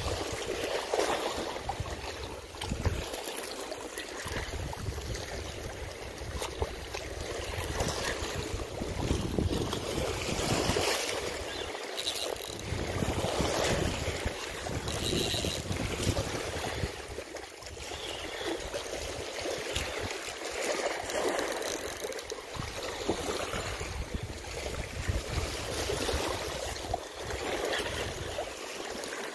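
Small waves washing and splashing against a shoreline rock, swelling and ebbing every few seconds, with wind gusting on the microphone.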